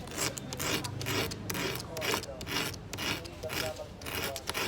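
Sandpaper rubbed back and forth against the end of an orthodontic wire, about three short scratchy strokes a second, bevelling the corner so two wires can be soldered together.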